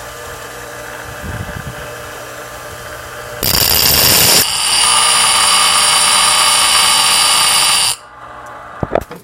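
Bench grinder running, then from about three and a half seconds in a loud, high-pitched grinding as a rusty steel square is pressed to the wheel to take its rounded corners off. The grinding lasts about four and a half seconds and cuts off suddenly.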